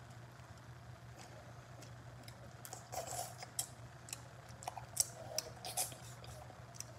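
A person chewing food and smacking their lips, close to the microphone: a scatter of soft wet clicks and smacks, busiest between about three and six seconds in, over a faint steady hum.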